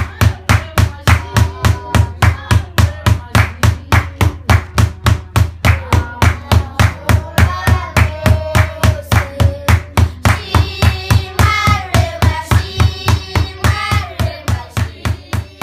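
Large hide-covered wooden drum beaten with a stick in a steady quick rhythm, about four beats a second, each beat with a deep boom. Children sing along, and the singing gets stronger about two-thirds of the way in.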